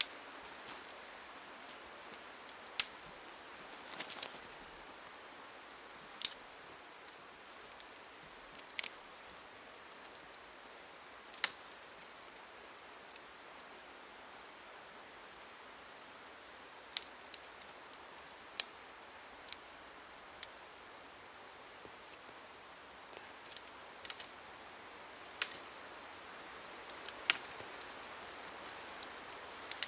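Thin dry sticks being worked into kindling by hand: a dozen or so sharp, separate snaps and clicks spread irregularly over a faint steady hiss.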